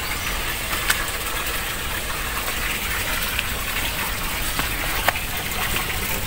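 Steady rush of running water, with a couple of short clicks about one second and five seconds in.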